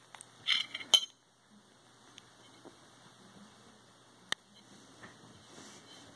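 Metal fork clinking against a ceramic plate: a quick cluster of clinks about half a second in, a sharp one at about one second, and a single clink a little past four seconds.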